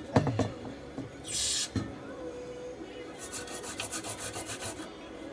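A small stiff brush scrubbing a phone's logic board as it is washed clean, a run of quick scratchy strokes about six a second. A few light knocks at the start and a short hiss about a second and a half in.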